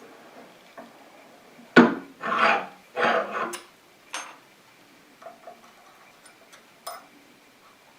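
Steel keyway broach and shim being handled and fitted into a pulley bore, metal clinking and scraping: a sharp knock about two seconds in, a few scrapes, then scattered small metallic clicks.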